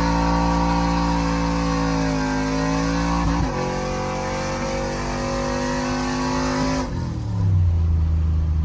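Cammed LS V8 Chevrolet Silverado pickup driven hard under acceleration, its engine note holding steady, then dropping sharply at a gear change about three and a half seconds in. It drops again near seven seconds in to a lower, deeper note.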